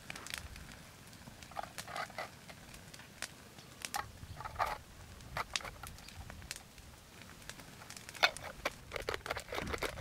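Hands scooping snow and packing it into a small camp kettle: irregular short crunches and scrapes of snow, the loudest about eight seconds in.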